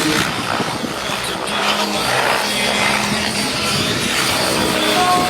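Radio-controlled model helicopter running loudly: dense motor and rotor noise with a few faint steady whining tones in it.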